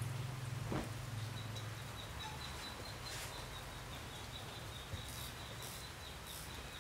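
Faint background ambience: a thin steady high tone, a soft click about a second in, and a few short hissy rustles near the end.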